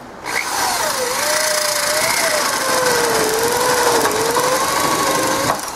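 Electric drill boring a half-inch hole clear through 3/8-inch plywood. The motor whine sags and recovers as the bit bites into the wood, and stops abruptly near the end once the bit is through.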